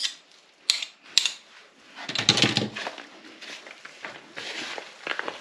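Two sharp clicks, then hands kneading a soft potato-and-quark dough in a bowl: a loud squelching burst about two seconds in, followed by softer irregular squishing.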